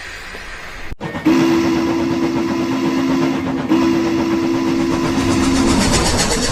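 A locomotive sounds two long blasts on a low two-note chord, over the steady rushing noise of a running train. A hiss comes first and breaks off about a second in, just before the first blast.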